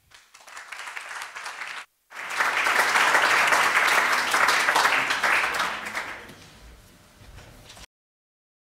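Audience applauding at the end of a lecture. The clapping builds, breaks off for a moment about two seconds in, is at its fullest for several seconds, then fades and cuts off abruptly near the end.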